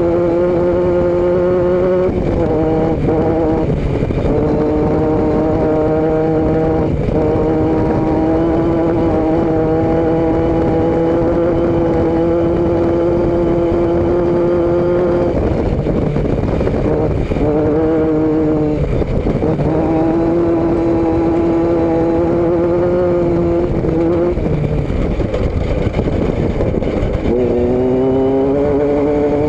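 Vehicle engine and exhaust heard from a rear-mounted action camera, running at a steady cruising pitch over a constant low wind and road rumble. Several times the note breaks off briefly as the throttle lifts or a gear changes. Near the end it drops in pitch and climbs again as the vehicle accelerates.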